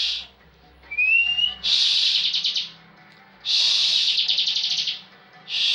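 Bar-winged prinia (ciblek) singing its 'ngebren' song. A short rising whistle about a second in is followed by buzzy, rapidly pulsed rattling phrases, each about a second long, repeated with short pauses.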